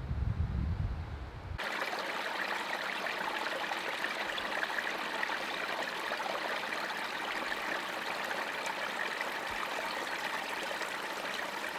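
Small forest brook trickling and running steadily over sticks and stones. For the first second and a half, wind buffets the microphone with a low rumble before the sound cuts to the water.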